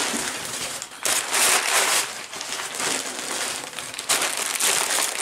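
Plastic packaging crinkling and rustling as it is handled and pulled out of a parcel by hand, louder about a second in and again from about four seconds in.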